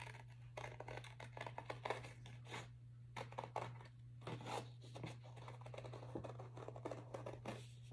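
Scissors cutting out paper circles: faint, irregular snips and paper rustling, over a low steady hum.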